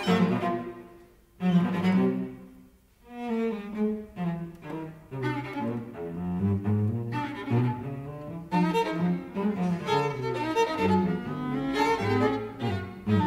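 String quartet playing a fast movement, the cello's low notes prominent. It breaks off briefly about a second in and again near three seconds in, then runs on with quick, busy notes.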